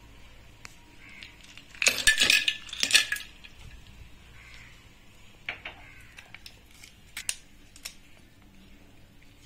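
Ice cubes dropped into a stainless steel blender jar, a quick clatter of clinks and knocks against the metal about two seconds in, followed by a few scattered single clicks.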